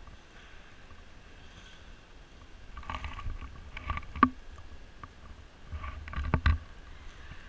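A few sharp clicks and knocks over a low rumble: one about four seconds in, and two close together about six and a half seconds in.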